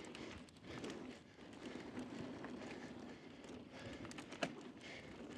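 Mountain bike rolling fast down a dusty dirt trail: steady tyre noise on loose dirt with the bike rattling and clicking over bumps, and one sharp clack about four and a half seconds in.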